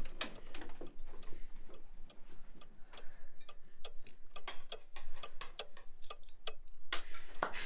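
Wall cuckoo clock ticking, a run of clicks.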